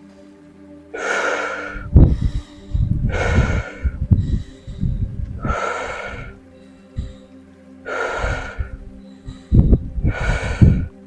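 A woman's forceful rhythmic power breathing for the Wim Hof method: about five deep breaths, one every two to two and a half seconds, some with a deep rumble of breath on the microphone. Soft background music with steady held tones runs underneath.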